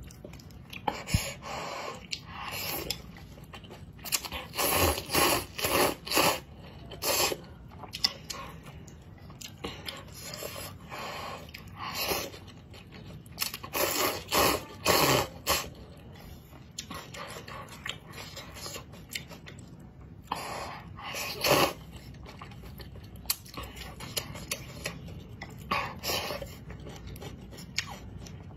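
Noodles being slurped from a bowl of spicy broth: several runs of short, loud sucking slurps, with quieter mouth sounds in between.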